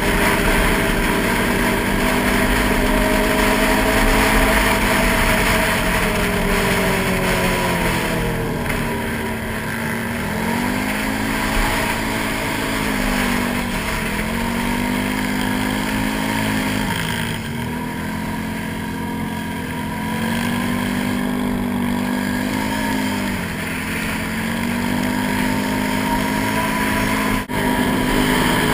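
Can-Am Renegade 800 XXC ATV's V-twin engine running under throttle, its pitch climbing and dipping every few seconds as the rider opens and eases off, over a steady rush of wind on the helmet-mounted microphone.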